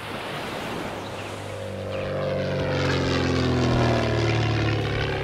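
A propeller-driven light aircraft flying past: its engine drone swells to a peak about four seconds in and then begins to fade, the pitch sinking slightly as it passes.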